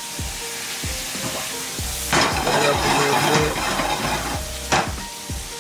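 Food sizzling in a hot pan on the stove, swelling into louder sizzling for about a second and a half about two seconds in, with a short sharp knock near the end.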